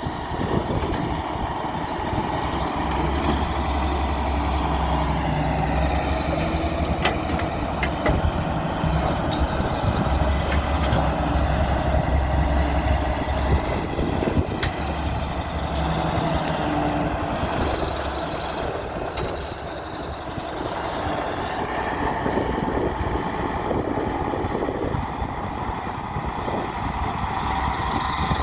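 Diesel engine of a Daewoo 170W-3 wheeled excavator running steadily while it works, its low hum swelling and easing in stretches, with a few sharp clicks.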